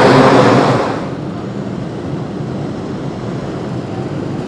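Engines of 500 Open class micro sprints on an indoor dirt track, loud for about the first second, then dropping off to a steady lower rumble as the field slows under the caution after a spin.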